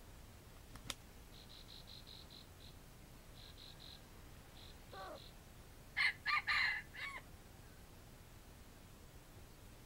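Red junglefowl rooster crowing once, a short broken crow of about a second, a little past halfway. Before it come faint rhythmic insect chirping and a single sharp click about a second in.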